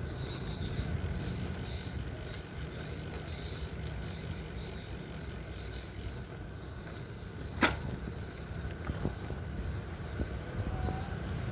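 Steady low rumble of riding along a paved road: wind on the microphone and tyre noise. One sharp click about two-thirds of the way through.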